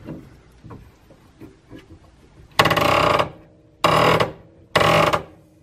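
A new ball bearing on a Singer PA 10-8 sewing machine motor shaft creaking as a pipe clamp forces it along the shaft: three loud creaks, each under a second and about a second apart, starting a little over two seconds in, with faint clicks before them.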